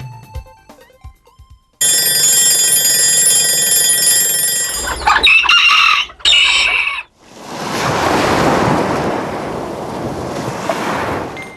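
A run of sound effects: a loud ringing made of many steady high tones, then a rooster crowing about five seconds in, then a steady rushing noise until near the end.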